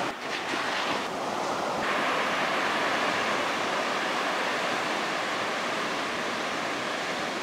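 Ocean surf: waves breaking and washing in as a steady rushing noise.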